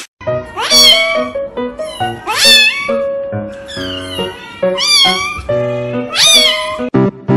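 Kittens meowing loudly: about five long meows, each rising and then falling in pitch, over background music with steady held chords.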